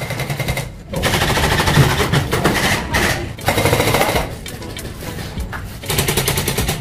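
Airsoft guns firing in rapid bursts, a fast clatter of many shots a second, with a brief pause a little under a second in.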